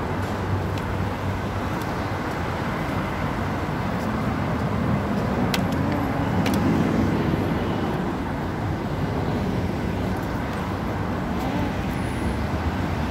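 City street traffic: a steady rush of cars and engines, swelling for a few seconds in the middle as a vehicle passes, with a few light clicks.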